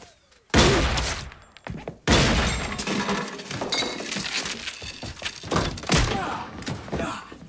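Semi-automatic pistol shots in quick succession. The first loud shot comes about half a second in, and a dense run of further shots and impacts follows from about two seconds in.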